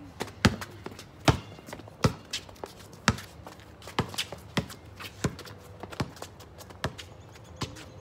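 A basketball being dribbled on a concrete driveway: a sharp bounce roughly every second, with lighter footsteps and shoe scuffs between.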